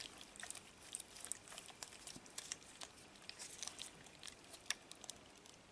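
Faint, irregular small clicks and ticks, several a second, like small objects being handled.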